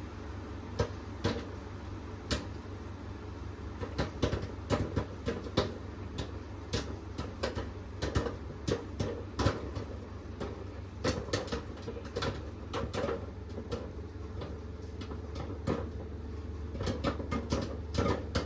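Microwave popcorn popping in its bag inside a running microwave: irregular sharp pops, often several a second, over the microwave's steady low hum. The pops come far less than two seconds apart, the sign that the popcorn is still cooking.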